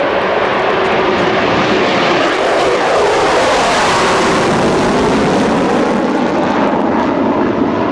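NASA SR-71's two Pratt & Whitney J58 jet engines at high power as the aircraft passes: loud, steady jet noise with sweeping shifts in tone that peak about halfway through.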